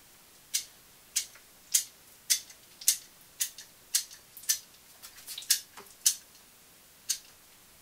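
Caulking gun clicking as its trigger is squeezed over and over to lay small dabs of silicone: sharp, high clicks about one every half second, a dozen or so in all.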